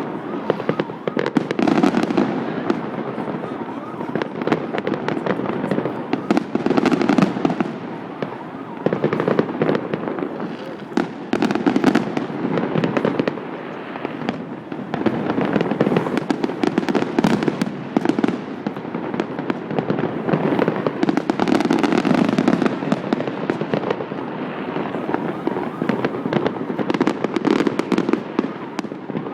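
Fireworks display: aerial shells bursting in a continuous barrage, a dense run of sharp bangs with repeated deeper booms every second or two.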